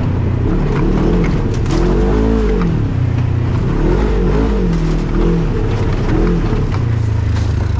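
Off-road vehicle engine revving up and down over and over, its pitch rising and falling about once a second as the throttle is worked.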